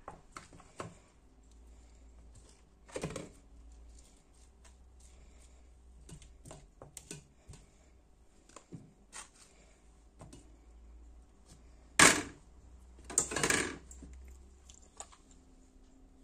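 Scattered light clicks and taps of handling, with a sharp knock about twelve seconds in and a longer clattering rustle right after it.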